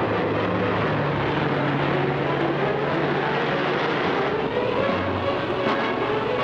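Car engine running steadily, its pitch climbing gradually about halfway through.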